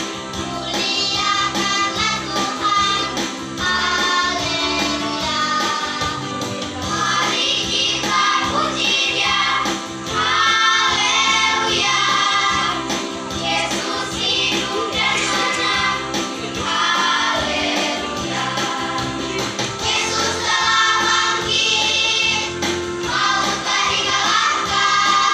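Sunday school children's choir singing together over a musical accompaniment with a steady beat.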